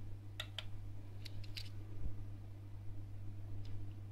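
Light plastic clicks and taps from small LED finger lights being handled, several in the first couple of seconds and one more near the end, over a steady low hum.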